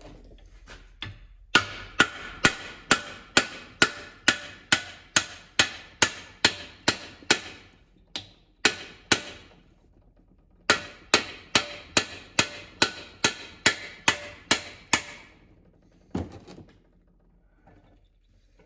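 Hammer blows on steel, about two a second, each ringing briefly, driving a bearing or shaft out of an Allis-Chalmers B tractor's transmission case. A run of about fourteen strikes, a few spaced ones, a pause, then about ten more, and a single duller knock near the end.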